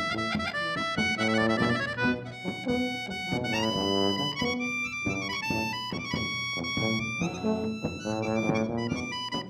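Klezmer band playing live: accordion with a brass instrument carrying the tune, the notes changing quickly.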